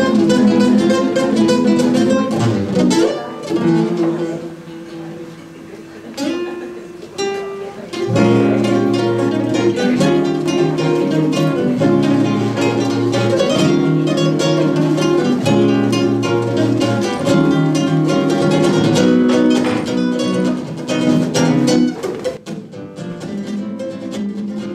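Two acoustic guitars playing a fast twin-lead metal passage, with rapid runs of picked notes. The playing softens about three and a half seconds in, comes back full at about eight seconds, and thins out near the end.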